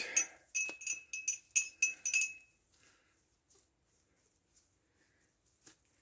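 Metal chainsaw chain clinking and rattling against a container while it is cleaned in gasoline: a quick run of sharp clinks with a brief ringing tone in the first two seconds or so, then only a few faint ticks.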